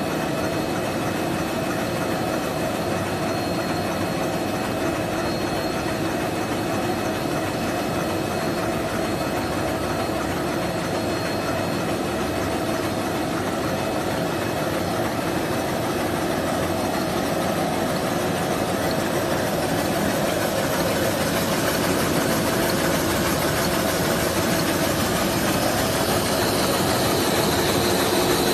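Facial tissue paper machine running, a steady mechanical din from its rollers and folding section with faint steady whines, growing a little louder over the last several seconds.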